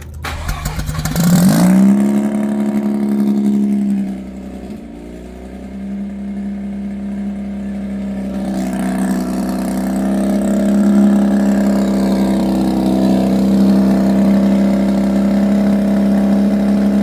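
Mazda RX-8's twin-rotor Renesis rotary engine cranking briefly, then catching about a second in and flaring up sharply in revs. It drops back and stumbles at about four seconds, then climbs gradually to a steady high idle.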